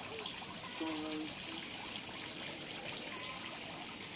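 Garden pond fountain splashing and trickling steadily.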